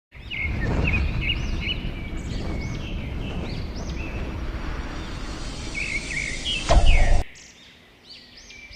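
Birds chirping in repeated short calls over a heavy, low rushing noise. The rushing swells to a loud whoosh and cuts off abruptly about seven seconds in, leaving the chirping alone.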